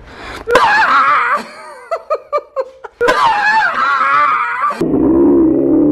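A teenage girl screaming in fright at a jump scare: two long, high, wavering screams with a few short choppy cries between them, then a lower drawn-out wail near the end.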